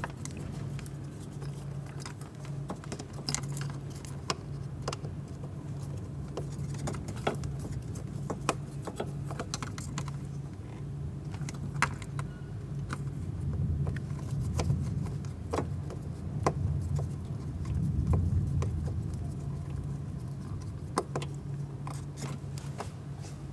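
Scattered small clicks, taps and light rattles of multimeter probe leads and plastic wiring being worked into a cramped sensor connector in an engine bay, over a steady low hum.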